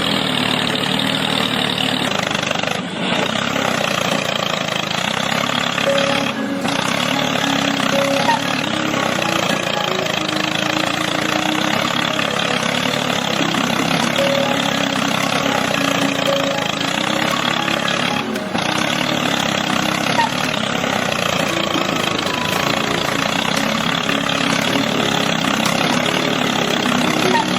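An engine running steadily, broken by brief dips about 3, 6 and 18 seconds in.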